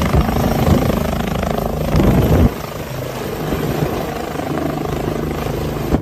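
Helicopter sound, the rotor and engine running steadily, louder for the first two and a half seconds and then a little quieter.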